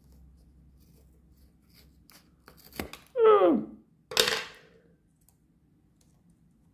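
Scissors snipping through the corner of a cardboard drink-style carton of tomato purée, a few small ticks and then one sharp snip a little under three seconds in. Right after it come a short voice sound falling in pitch and a brief breathy rush.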